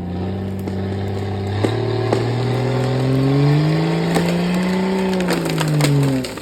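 Off-road 4x4's engine running under load, its pitch climbing from about a second and a half in and falling away near the end, with a string of sharp cracks and snaps over the middle.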